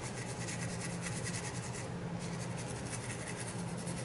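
Wet toothbrush scrubbing the oil-soaped rim of a Medico Guardsman briar pipe bowl: a steady, rapid scratchy brushing of bristles on wood, working loose the caked carbon lava.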